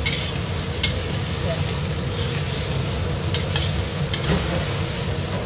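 Day-old rice being stir-fried in a wok, with a steady sizzle as a metal spatula turns and tosses it. Several sharp clinks sound as the spatula strikes the wok.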